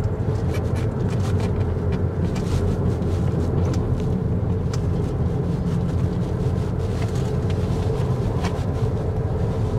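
Steady road and engine noise of a car driving along, heard from inside the cabin, with a few faint clicks.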